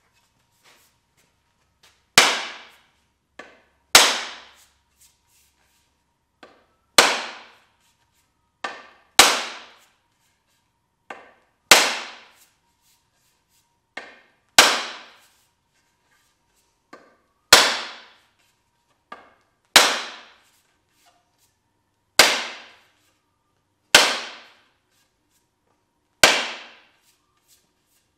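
A mallet striking the end of a wooden axe handle, about eleven hard blows two to three seconds apart, most with a lighter tap just before, each knock ringing briefly. The blows drive the handle into the axe head's eye to seat the head.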